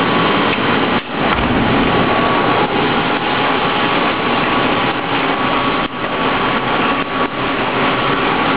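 CNC milling machine running, its carbide end mill cutting 4140 steel barstock: a steady, dense machining noise with a faint steady tone. It dips briefly about a second in and again near six seconds.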